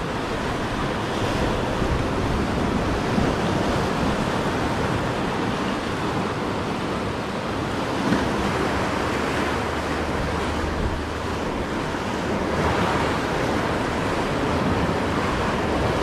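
Sea surf churning and washing against the rocky cliff base below, a steady rushing of waves.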